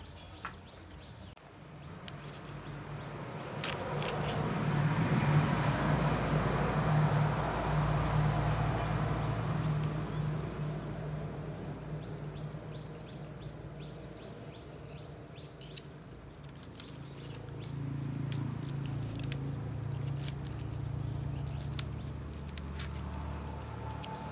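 A low, steady engine hum that grows louder over a few seconds, fades, then swells again near the end, with faint high chirps and clicks above it.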